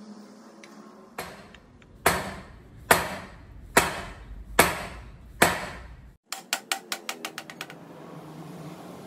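Five heavy hammer blows about a second apart on a wooden block laid over a drill press's cast-iron head, driving the head down onto its column. They are followed by a quick run of about ten lighter taps that fade away.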